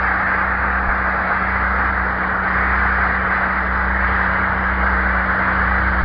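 Audience applause on an old speech recording with a steady electrical hum underneath, dying away near the end.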